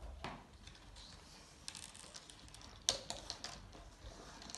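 Scattered light clicks and taps as a thin stick and paper are handled on a wooden tabletop, the sharpest tap about three seconds in.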